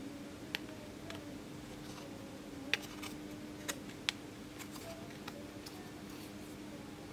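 Small sharp clicks and taps of an eight-pin DIP chip's legs being pressed into the holes of a printed circuit board, four louder clicks among fainter ticks, over a steady low hum.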